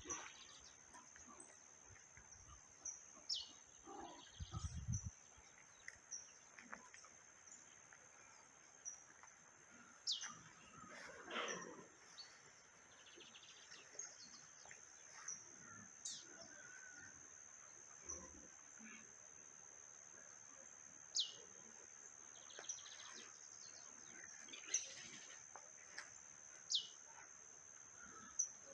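Faint birdsong: short high calls that slide sharply down in pitch, repeated every few seconds, with scattered softer chirps, over a steady high-pitched drone.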